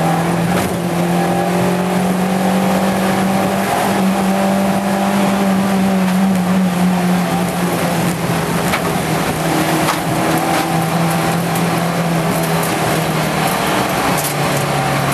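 Peugeot 205 GTI's 1.6-litre four-cylinder engine running hard under load, heard from inside the cabin, with tyre and water noise and a few sharp knocks. The engine note holds fairly steady, then drops lower near the end as the revs fall.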